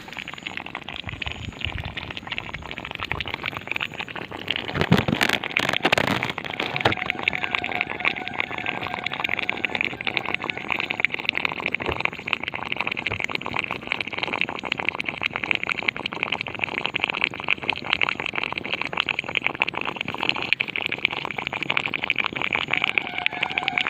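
A steady, dense, rapidly pulsing high-pitched sound coming from inside a crop field. It has gone on for hours, and no source can be seen nearby. There is a louder burst of noise about five to six seconds in.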